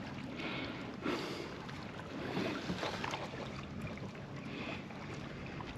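Faint water lapping and small splashes and knocks around a kayak, with a steady hiss.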